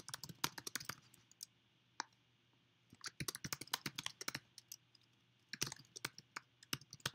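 Typing on a computer keyboard: three quick runs of keystrokes with short pauses between them.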